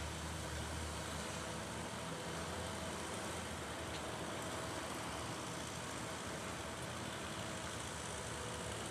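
A heavy machine's engine running steadily, a continuous low hum under an even noise.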